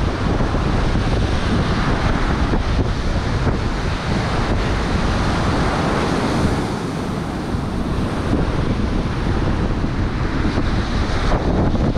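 Strong wind buffeting the microphone with a low rumble, over the steady wash of heavy surf breaking on the beach.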